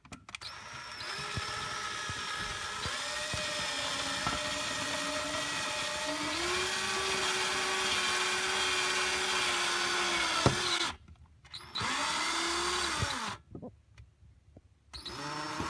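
Power drill boring upward through the metal brace of the bumper. The motor runs for about ten seconds with its pitch shifting, then stops. A short burst follows that spins up and winds down, and it starts again near the end.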